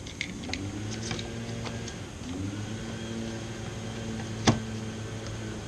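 Small clicks from the Kia's plastic door trim being handled and snapped into place, with one sharp snap about four and a half seconds in. A steady low hum runs under it.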